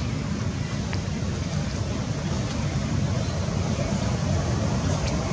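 Steady low outdoor rumble with a faint hiss above it.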